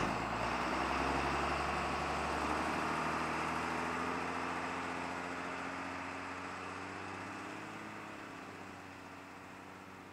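School bus engine running as the bus drives off, the sound fading steadily as it moves away.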